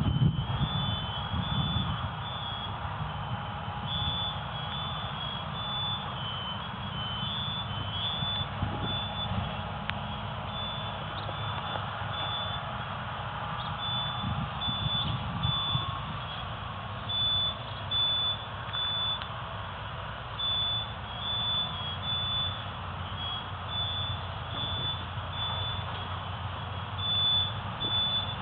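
Steady low rumble and road noise of a vehicle on the move, with a high electronic beeping that repeats in spells, like a reversing alarm.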